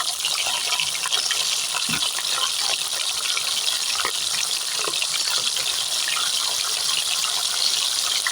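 Rohu fish heads sizzling as they fry in hot oil: a steady hiss with scattered small crackles.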